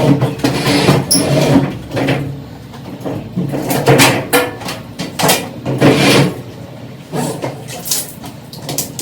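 Irregular clunks, knocks and scraping as a Whirlpool washing machine is handled and moved back into place after repair.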